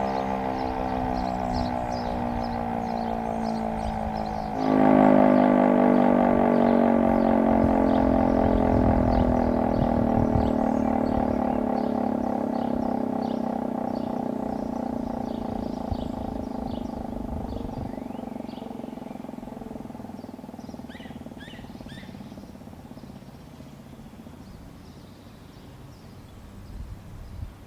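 Sireno Type 5 electromechanical siren winding down after its noon whistle blast: one steady tone sliding slowly lower in pitch and fading away over about twenty seconds. About five seconds in it abruptly gets louder before resuming its slow fade.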